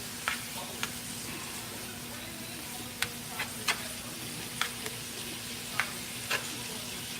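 Shaved steak sizzling steadily in a frying pan, with a spatula clicking sharply against the pan about eight times at uneven intervals as the meat is stirred and cut up.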